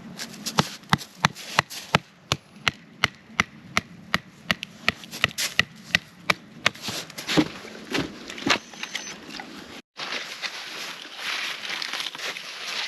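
Wood being chopped with a quick, even run of sharp knocks, about three a second, ending in a few heavier strokes. After an abrupt cut, a steady hiss follows.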